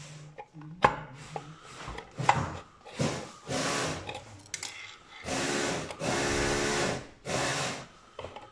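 Electric screwdriver with a long bit running in four or five short runs, backing out the screws that hold the power-supply plate inside a moving-head light. A few sharp metal clicks come before the runs start.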